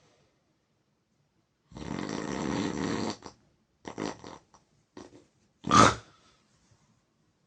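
A person snoring: one long, rattling snore about two seconds in, then a few short bursts of breath, and a brief, loud burst near six seconds.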